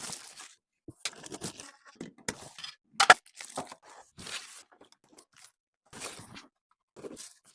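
Handling noises: a series of short, irregular rustles, scrapes and crinkles with silent gaps between them. No vacuum motor is running.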